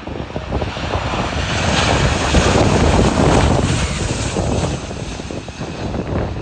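Jet engines of a Ryanair Boeing 737 on final approach passing low overhead, building to a peak about two to three seconds in and then fading as it heads for the runway, with strong gusty wind buffeting the microphone.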